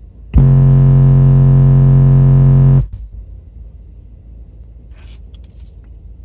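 Car subwoofers playing a very loud 45 Hz test-tone burp for about two and a half seconds, starting and cutting off sharply. They are driven hard by a Power Acoustik RZR1-2500D amplifier into a roughly 1 ohm load during a clamp-meter power test.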